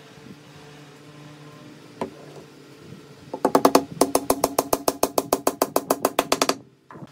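Wooden mallet tapping a glued wooden dowel into a drilled hole in a wooden frame corner: a single knock about two seconds in, then a fast, even run of wood-on-wood knocks, about eight a second, for about three seconds from about three and a half seconds in.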